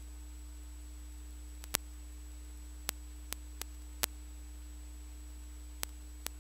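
Steady low electrical hum with a faint high whistle, broken by about seven sharp clicks at irregular intervals from about a second and a half in.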